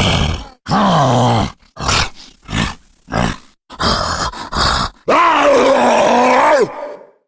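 Cartoon monster sound effects played one after another: a short roar falling in pitch about a second in, a cluster of short grunts through the middle, then one long pitched roar from about five seconds in, lasting over a second and a half.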